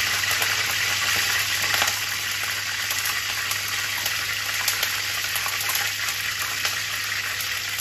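Oil sizzling in a kadai as bay leaves and dried red chillies fry: a steady hiss with scattered small crackles.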